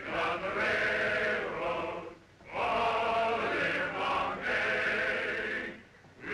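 A group of men singing together in long held phrases, with a short break for breath about two seconds in and another near the end.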